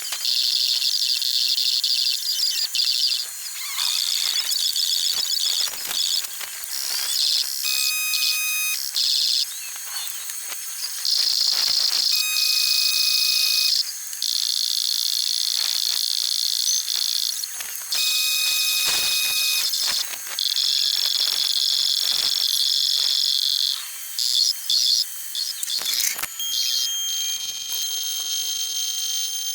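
Cicadas buzzing in long, loud, high-pitched bursts that stop and start. A short two-tone beep recurs several times.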